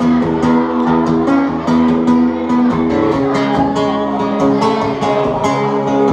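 Live band music through PA speakers: a guitar strummed in a steady rhythm under sustained chords.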